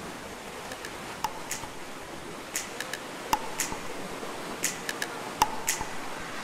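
Sea surf washing into a rocky cave, a steady rush of water, overlaid with a dozen or so sharp keystroke clicks, irregular and about two a second, from a typed-text title effect.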